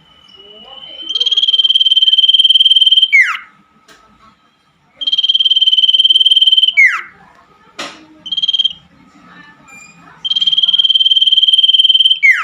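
Common iora singing: a long, held high whistle of about two seconds that ends in a quick downward slur, given three times, with a short single note between the second and third. A sharp click comes about eight seconds in.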